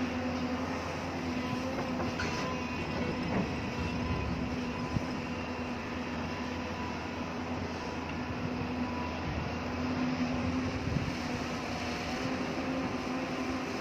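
Hyundai excavator's diesel engine running steadily under work, a constant heavy drone with a low hum, with a few small knocks.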